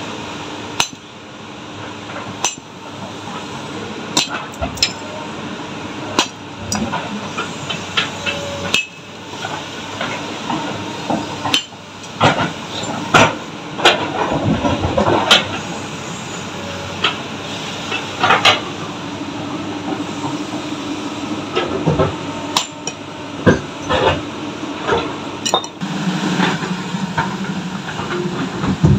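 Sledgehammer blows striking stone as boulders are split by hand: sharp clinking impacts at irregular intervals, a few seconds apart. A steady engine drone runs underneath.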